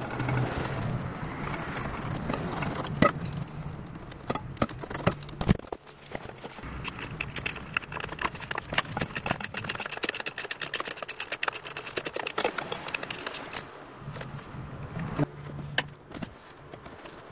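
Hand-tool work in an engine bay: scattered clicks and knocks of tools against metal and plastic parts, with a run of rapid, evenly spaced ratchet-wrench clicks for about four seconds in the middle.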